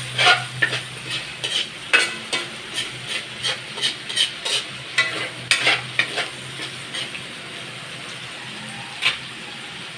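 A metal spoon scraping and clinking against an aluminium wok as corned beef is stir-fried, over a steady sizzle. The stirring strokes come thick and fast, then ease off about seven seconds in, leaving the sizzle and one more clink near the end.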